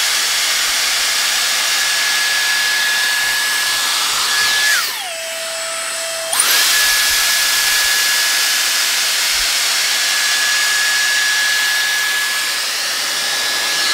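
Dyson Airstrait air straightener running in wet mode: a steady rush of air with a high motor whine. About five seconds in, the whine drops in pitch and the airflow eases for over a second, then glides back up.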